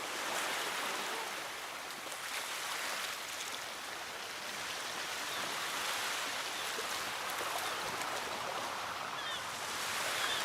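Rushing water, a steady hiss that swells and eases every few seconds.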